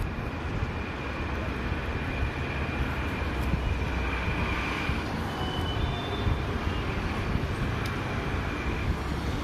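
Steady low background rumble, with a faint thin high tone coming and going over it.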